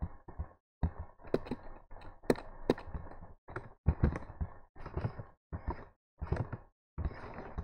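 Computer mouse clicks and desk handling knocks with close breathing noise, in short chunks that cut in and out abruptly.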